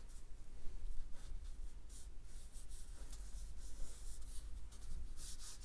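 Ballpoint pen scratching over paper in many short, light sketching strokes, over a low steady hum.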